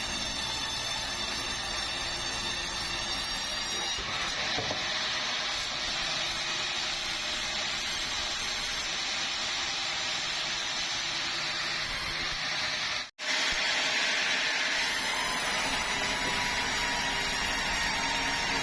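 Sawmill saw running and cutting bengkirai hardwood, a steady dense mechanical noise with the blade's hiss in the wood. The sound cuts out for a split second about two-thirds of the way through, then carries on.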